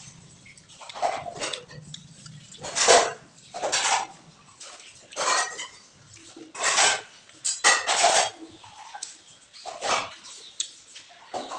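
Metal spoon scraping and knocking against a cooking pot, in short irregular strokes about a second apart, as when stirring a masala.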